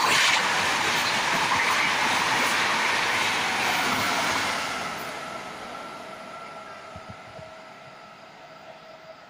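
Rajdhani Express passenger train rushing past at speed, with its coaches and then its rear pushing locomotive clattering over the rails. About halfway through, the noise fades away steadily as the train recedes, leaving a faint steady whine.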